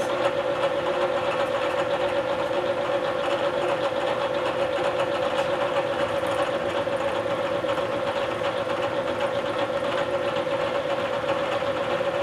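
Bridgeport vertical milling machine running, its end mill cutting a pocket in an aluminum block while the table is fed along X. The sound is steady, with one constant tone.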